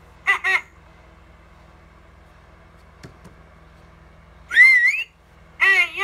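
Animatronic talking plush parrot toy playing its recorded sounds through its speaker: two short high-pitched voice syllables, a pause with a faint click about three seconds in, then a loud wavering parrot squawk near five seconds, followed by the start of another high, sped-up spoken phrase.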